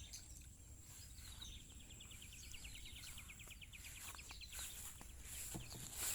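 Faint outdoor ambience: a bird gives a rapid trill of many quick notes, falling slightly in pitch, for about three seconds starting a second and a half in, over a steady high insect drone and a low rumble.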